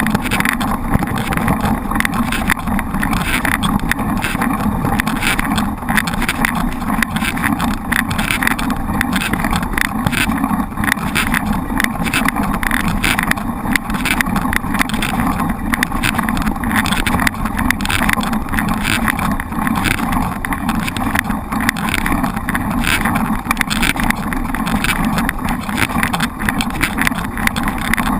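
Steady wind rush and riding noise on a bike-mounted camera's microphone during a mountain-bike ride, loud and even throughout.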